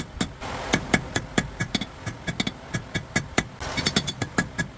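Rapid, evenly spaced hammer blows on hot steel, about six a second, each with a short metallic ring: forge welding the pieces of the anvil face together.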